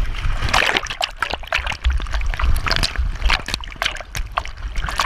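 Water splashing and sloshing around a swimming dog, heard from a camera riding on its back at the waterline, with many irregular sharp splashes as waves wash over the lens.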